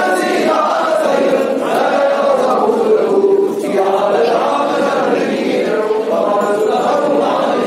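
Several voices chanting a Hindu prayer together in a steady sung melody, carried by the echo of a stone temple hall.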